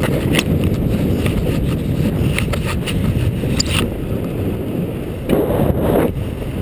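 Heavy wind buffeting an action camera's microphone, a dense low rumble, with a few short knocks and a louder scraping burst a little over five seconds in as the camera is handled.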